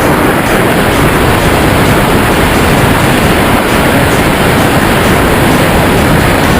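Loud, steady wind noise: air rushing past the camera microphone during a tandem skydive.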